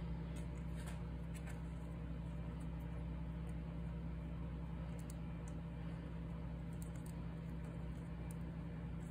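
Steady low hum with faint scattered clicks and ticks as hands pull small vacuum hoses off their three-hose connector on the motorcycle's throttle bodies.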